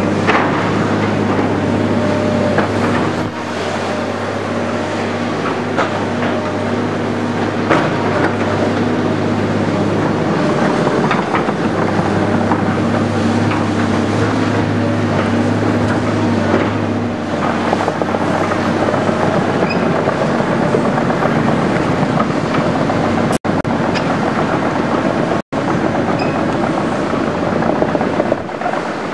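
Diesel engines of tracked hydraulic excavators running steadily as they dig spoil, with scattered knocks and scrapes from the buckets and rubble. The engine hum drops in level about seventeen seconds in.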